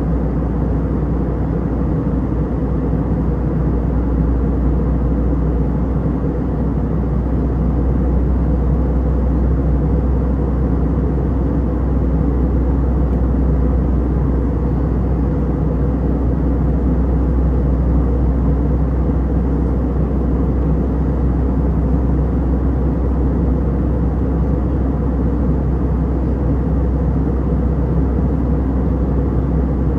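Steady low drone of engine and airflow noise inside the cabin of an Airbus A320 in flight, unchanging in level and pitch.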